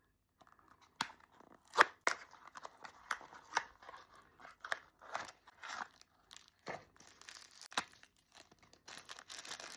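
Small blind-box toy packaging being torn and crinkled open by hand: an irregular run of sharp tearing clicks and rustles, the loudest about two seconds in.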